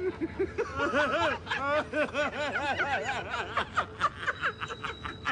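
Human laughter: a run of rapid pitched 'ha' pulses that rise and fall in pitch, breaking into quicker, shorter giggles after about three and a half seconds.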